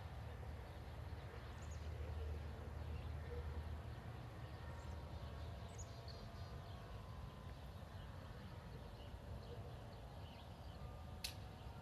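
Faint background with a steady low rumble and a few faint high chirps, and a single sharp click near the end; no impact wrench is running.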